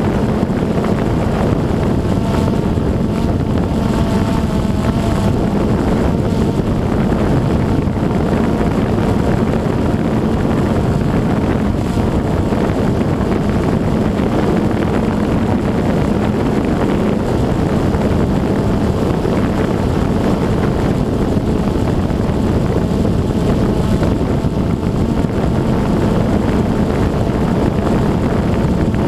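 DJI Phantom 2 quadcopter's motors and propellers buzzing steadily as it hovers in place, heard close up through the onboard GoPro's microphone, with wind noise on the mic.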